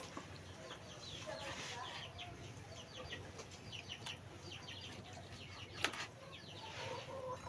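Birds chirping, many short falling chirps in quick series, faint, with a sharp knock about six seconds in as the loudest sound.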